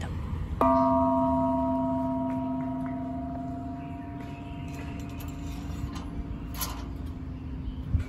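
A bronze Japanese temple bell (bonshō) is struck once about half a second in, then rings on with several steady tones, the lowest the strongest, slowly fading away.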